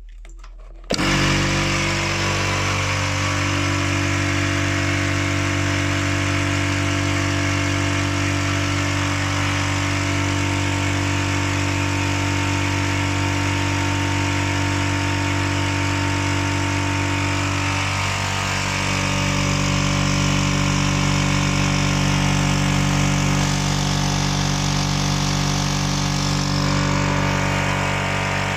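Oil-lubricated piston air compressor starting up about a second in and running steadily, pumping air into its tank on freshly fitted piston rings. Its note shifts slightly and runs a little louder about two-thirds of the way through.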